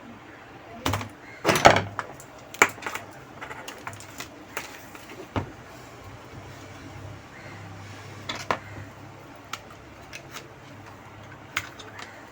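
Scattered clicks, taps and knocks from hands working a loose wiring connector and cable on a washing machine control board, the loudest cluster about two seconds in, over a faint low hum.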